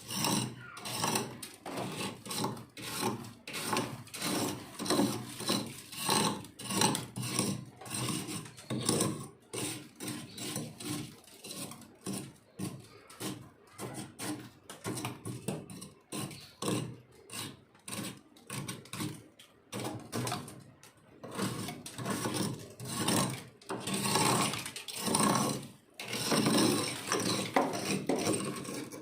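Freezer frost crunching and scraping close to the microphone, in rapid strokes several times a second with a brief pause near the end.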